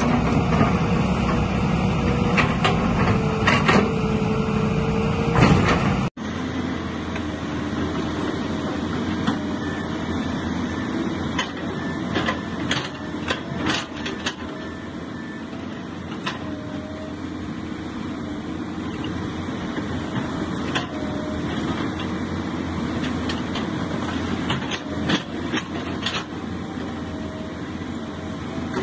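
Hitachi ZX hydraulic crawler excavator running steadily with a constant hum and whine. Scattered knocks and scrapes come as the bucket works over the rock of a slope face.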